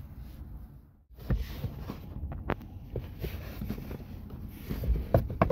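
Hands handling a plastic interior trim cover on a car's rear parcel shelf: a few scattered light clicks and knocks over a low steady rumble.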